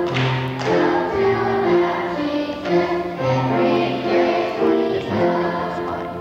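A children's choir singing a song together, with lower sustained notes beneath the voices.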